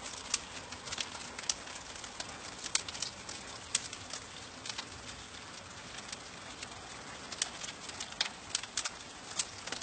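Fireworks crackling: a steady hiss dotted with many scattered sharp pops, without big booms.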